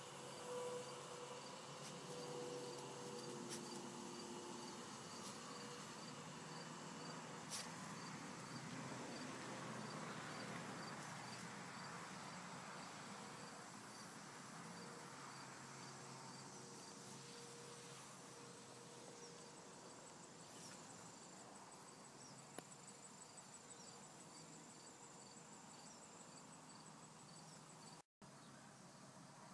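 Faint insects chirping in an even, repeating rhythm, joined in the second half by a faster, higher trill.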